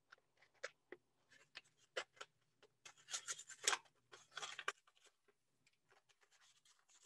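Faint rustling and light clicking as hands sort through small packets of electronic components, stopping about four and a half seconds in.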